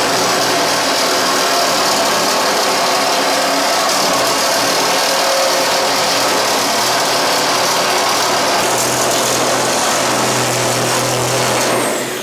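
Power saw cutting through the steel shell of an old heating oil tank, a loud steady motor whine and rasp of blade on metal. The motor winds down just before the end.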